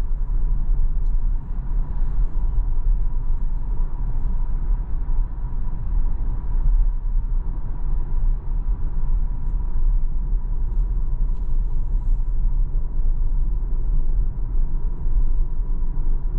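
Cabin noise of a Tesla Model Y Performance cruising at country-road speed: a steady low road and tyre rumble with no engine sound, and a faint steady high tone above it.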